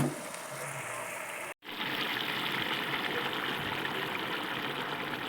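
Water pouring into a pot of chicken curry: a steady gushing hiss that starts after a brief cut about a second and a half in.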